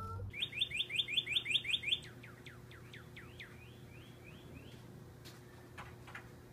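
Northern cardinal singing: a quick run of repeated whistled notes, then slower whistles sliding downward, and a few softer notes that stop about four and a half seconds in.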